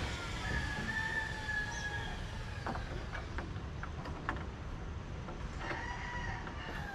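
A rooster crowing: one long drawn-out call of about two seconds, then a second call starting near the end, with a few light knocks in between.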